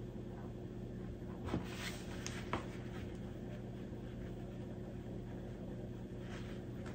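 Quiet room tone with a steady low hum, and a few faint soft rustles and taps from hands handling yarn and a stuffed fabric heart, around a second and a half to two and a half seconds in.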